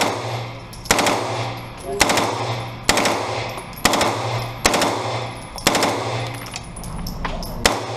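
Heckler & Koch MP5 submachine gun firing a string of sharp reports about a second apart, with a longer pause before the last one near the end. Each report rings off the walls of the indoor range booth.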